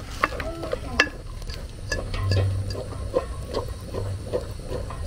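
Thick rice fufu being stirred and turned in a pot: a few sharp knocks of the utensil against the pot, then a steady rhythm of about two to three strokes a second in the second half.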